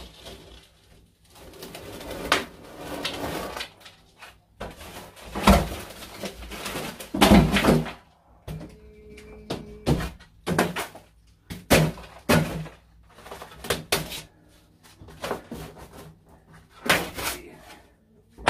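Loose plaster being pulled off an old brick wall by hand: repeated cracking, tearing and crumbling as the sheets break away, with debris dropping to the floor. The loudest bursts come around the middle.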